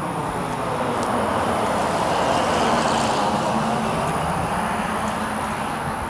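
A road vehicle driving past, its tyre and engine noise swelling to a peak about midway and then fading.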